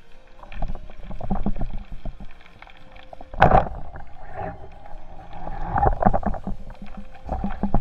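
Underwater, a band-powered speargun fires with one sharp crack about three and a half seconds in. Muffled knocks and rushing water from movement come before and after it.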